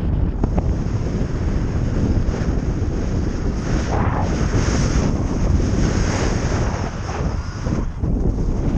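Wind from flight buffeting the camera microphone under a 14.7 m² miniwing in a 7–8 m/s wind: a steady, low rushing noise that swells and eases, dipping briefly near the end.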